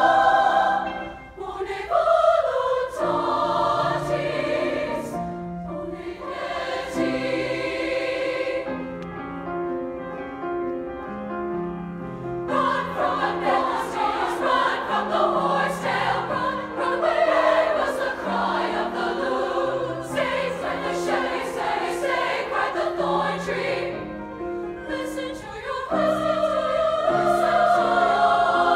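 Large concert choir singing a sustained piece in many parts with grand piano accompaniment. It starts softly and swells to a fuller, louder passage about halfway through, eases briefly, then grows louder again near the end.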